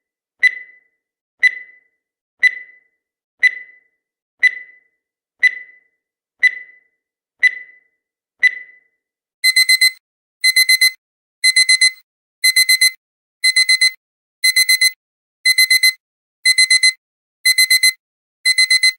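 Digital countdown timer sound effect: a short beep once a second, then about nine seconds in the countdown runs out and an alarm-clock beeping starts, a quick burst of four beeps repeated every second.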